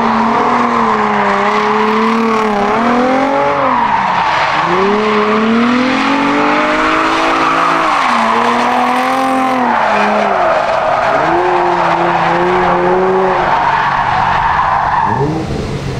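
Nissan 350Z drift car sliding through a drift, its engine revving up and falling back several times over continuous tyre squeal. Both fade away near the end.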